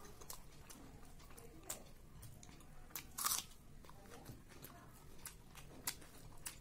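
A person chewing mouthfuls of rice and curry eaten by hand, with short sharp mouth clicks and bites scattered through. The loudest click comes a little past three seconds in.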